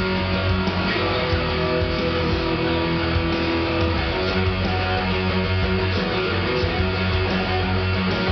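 Electric guitar playing a heavy metal part, with held notes changing every second or so over a dense, steady low end.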